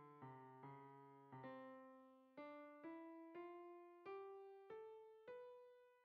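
Background music on electric piano: a slow melody of notes struck about twice a second, each fading away, with lower notes underneath for the first couple of seconds.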